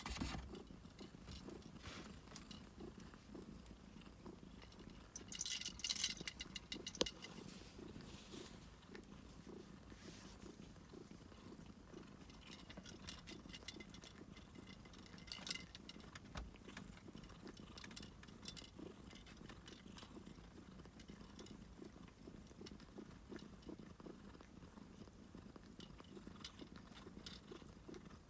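Domestic cat purring steadily and softly, with brief rustles now and then.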